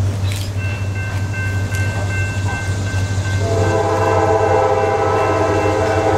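Diesel locomotive air horn sounding a chord of several notes, coming in about halfway through and held to the end, over a steady low rumble.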